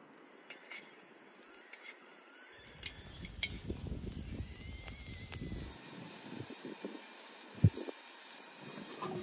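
Offal chunks sizzling as they fry in a wide black pan over a wood fire, stirred with a wooden spatula. The first two seconds hold only a few faint knife clicks; a single loud knock comes near the end.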